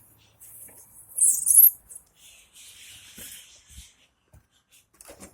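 Small birds chirping and squeaking in short high-pitched bursts, the loudest about a second in, then a longer run of chirps around the middle.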